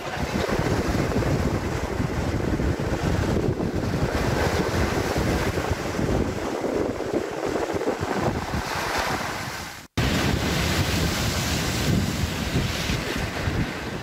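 Rough sea surf breaking against a concrete seawall, with strong wind buffeting the microphone. The sound cuts out abruptly for an instant about ten seconds in, then the wind rush carries on.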